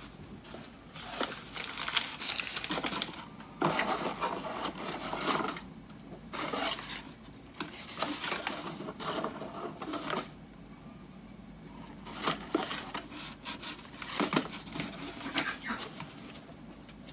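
Crumpled brown packing paper rustling and crinkling as hands dig through a cardboard box, on and off, with small sharp taps and clicks of the box and pieces being handled.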